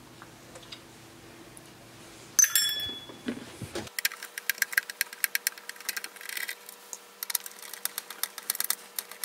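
A loud clatter with a short ring about two and a half seconds in. From about four seconds in comes a dense run of rapid clicks and scrapes: a screwdriver backing screws out of the power supply's metal case, played at four times speed.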